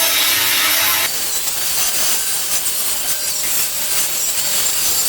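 Power tool cutting through the rusted bolts of a school bus's seat track. A pitched motor tone runs until about a second in, then gives way to a steady, noisier cutting sound.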